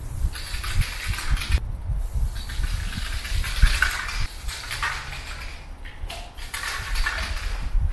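Aerosol spray paint can hissing in several bursts of a second or two each, with short breaks between, as paint is sprayed onto a concrete wall. A low rumble runs underneath.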